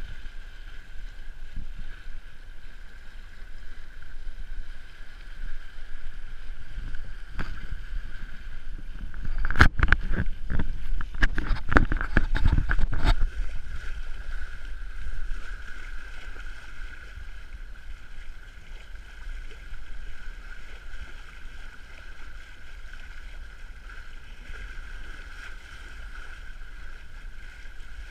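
Water rushing along a sailboat's hull and wind on the microphone, with a steady high hum throughout. About a third of the way in, a few seconds of loud knocks and rattles rise above the wash.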